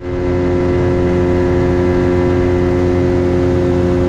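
Outboard motor of a small aluminium boat running steadily at cruising speed, with the hull rushing through the water.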